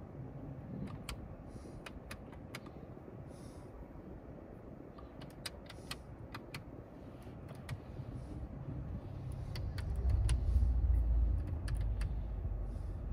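Car interior rumble that swells from about eight seconds in, heavy and low by the end, with a scatter of light, sharp clicks and taps from fingers on the dashboard touchscreen's side controls.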